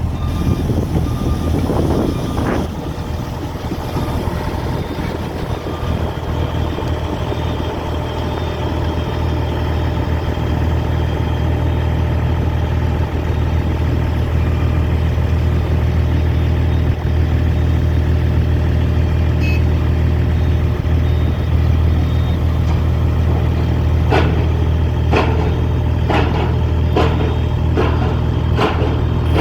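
A crane's diesel engine runs steadily with a deep, even hum. From about 24 seconds in, a series of sharp metallic clicks or knocks comes roughly once a second over the engine.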